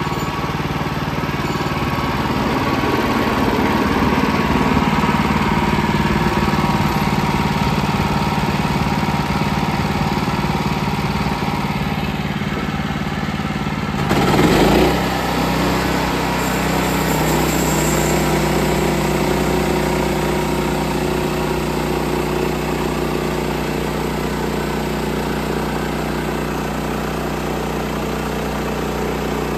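Sawmill engine running steadily while milling boards. About halfway through there is a brief louder surge, after which the engine note settles and runs steadier.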